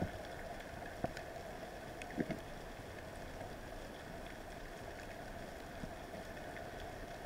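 Underwater ambient noise picked up by a camera housing on a speargun: a steady hiss, with a few sharp clicks and knocks, the loudest about one and two seconds in.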